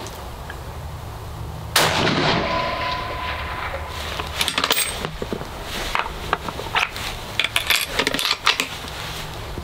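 A single shot from a .300 WSM Improved bolt-action F-Open rifle about two seconds in, loud and sharp, with a ringing echo after it. Later comes a run of short metallic clicks and clacks as the bolt is worked to eject the case and chamber the next round.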